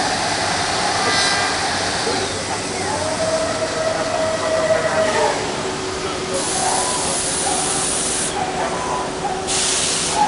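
A Bacci Master-Win 5-axis CNC working centre machining solid wood: a steady noisy cutting and running sound with a held tone that shifts in pitch. There are two bursts of high hiss in the second half.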